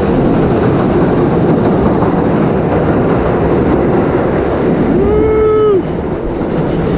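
Steady rumble of a longboard's 64 mm Five-O Classic urethane wheels rolling fast over asphalt, mixed with an elevated subway train running on the steel viaduct overhead. About five seconds in, a short pitched tone sounds for under a second.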